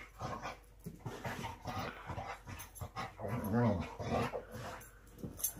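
A coonhound wriggling on her back on a rug, with soft rubbing and shuffling, and one low drawn-out vocal sound from her about three and a half seconds in.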